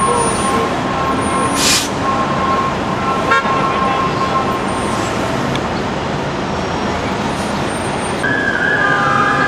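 City street traffic, engines and tyres, with car horns sounding and a short hiss about two seconds in. Near the end the unmarked Ford van's police siren starts: a held tone, then falling sweeps.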